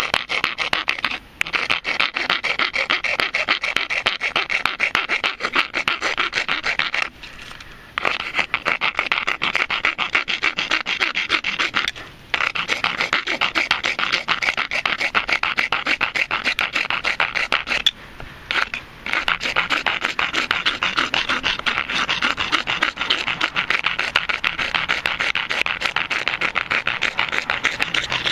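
Coarse rasp side of a four-in-one hand file rasping down the tip of a PVC pipe in quick back-and-forth strokes, stopping briefly four times.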